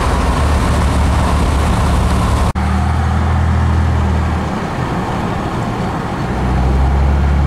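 Steady engine and tyre noise inside a Pontiac G8's cabin, cruising at about 40 mph. The sound cuts out for an instant about two and a half seconds in, and eases off a little for a second or so past the middle.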